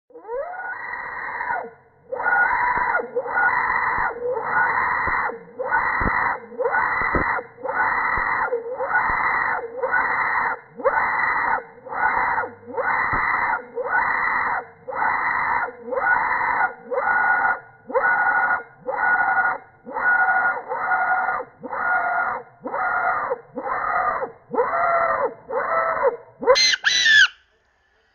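A loud, scream-like call repeated at a steady pace, about once every 1.2 seconds, each call under a second long and nearly identical to the last. Near the end come two shorter, shriller calls with a sweeping pitch.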